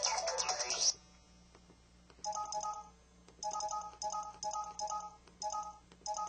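LG-KW9200 mobile phone playing a sound effect: a short melodic chime with gliding tones that ends about a second in. After a pause come about seven short two-note beeps, key tones like dialing tones, played as the phone's keys are pressed.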